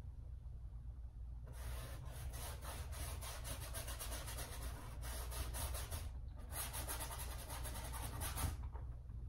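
Paintbrush scrubbing oil paint onto a canvas in quick, dense strokes, in two spells with a short pause between them.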